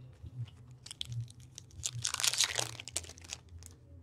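Crinkling and tearing of a hockey card pack's wrapper as it is handled and ripped open: scattered crackles, with a louder burst of crumpling about two seconds in.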